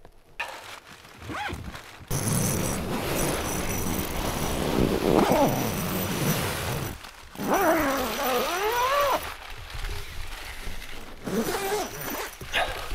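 Frost-coated tent door zipper being pulled open, followed by the nylon fabric of a Hilleberg Nallo 3 tent rustling as it is pushed aside. A bit past halfway, a person's voice rises and falls for about a second and a half.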